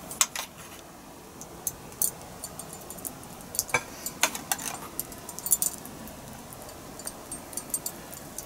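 A metal spoon clinking and scraping against an open tin can while cherry pie filling is spooned out, in short irregular taps.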